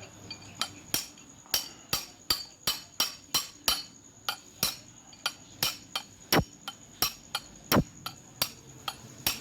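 A hammer striking metal about two to three times a second, over twenty blows, driving a ball bearing onto the tail end of a Mahindra 275 DI tractor gearbox's top pinion shaft until it seats.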